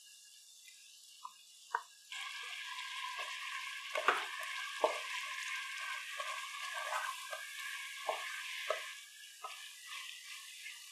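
Ground coconut paste hitting hot oil in a pan of baby corn masala and sizzling, with a wooden spatula knocking and scraping against the pan as it is stirred in. A couple of soft clicks come first. The sizzle starts about two seconds in and dies down near the end.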